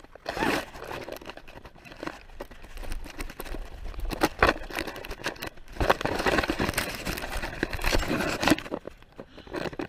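Handling noise from an action camera being stuffed into a fabric rig bag: cloth rustling and scraping right against the microphone, with scattered knocks and clicks, busiest in the second half.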